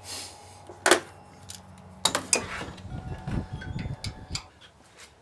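Metal tools and parts clinking and clattering as the compressor and its bracket are handled, with a few sharp clicks and some low handling rumble in the middle.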